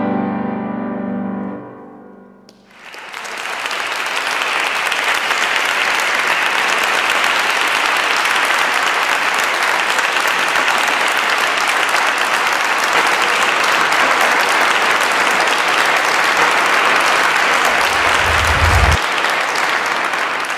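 The final chord of a Bösendorfer grand piano rings and dies away over about two seconds, then an audience applauds steadily.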